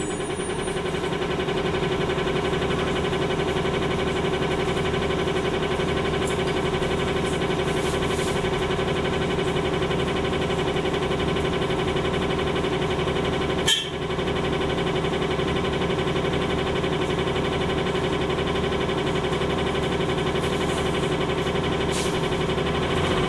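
Cummins ISL-G natural-gas engine of an Orion VII bus idling steadily, heard from inside the bus, with one sharp click a little past halfway.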